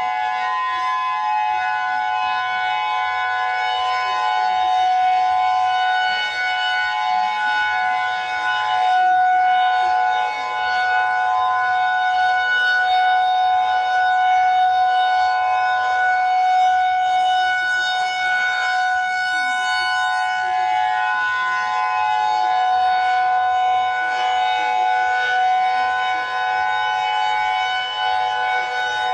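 Emergency-alert alarm sounding continuously: a steady, siren-like chord of several held tones that neither rises nor falls, with a slight waver.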